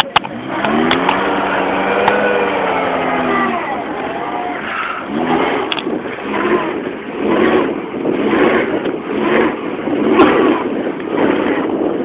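Car engine revving hard while the car is pushed by hand: a long rise and fall in revs, then the revs swelling and dropping about once a second.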